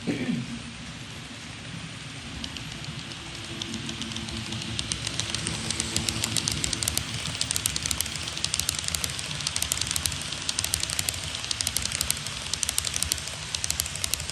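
HO-scale model train with blue passenger coaches rolling along the track, its metal wheels clattering in quick clicks over the rail joints. The clicking grows louder from about four seconds in as the coaches pass close by, over a faint motor hum. A short falling whoosh comes right at the start.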